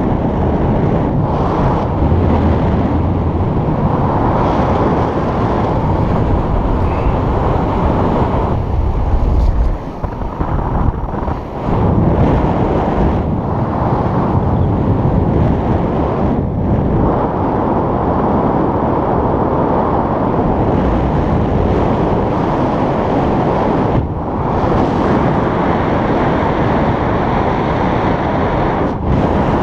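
Loud, steady wind rushing over the camera's microphone in paraglider flight, easing briefly about ten seconds in and again near twenty-four seconds.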